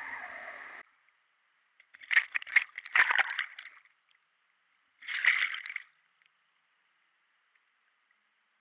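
A steady rushing noise stops abruptly about a second in. Then an action camera in its waterproof housing splashes and sloshes in river water in two short bouts as it is dipped into the surface from a rope.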